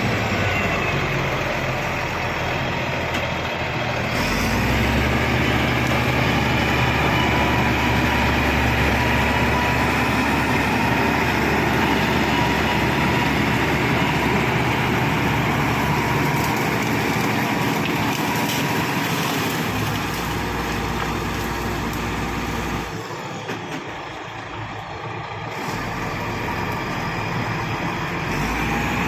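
Shantui SD16 bulldozer's diesel engine running steadily, easing briefly about 23 seconds in.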